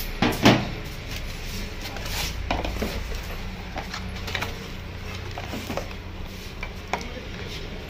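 Handling noises: a cardboard accessory box picked up, opened and set down on a stainless-steel counter, giving a few sharp knocks and clatters, the loudest about half a second in. A steady low hum runs underneath.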